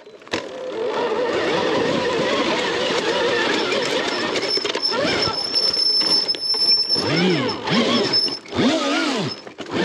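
Arctic Leopard electric dirt bike riding down a dirt trail: a motor whine that wavers, then rises and falls in pitch with the throttle several times in the second half, over tyre and trail noise, with a thin high steady whine alongside.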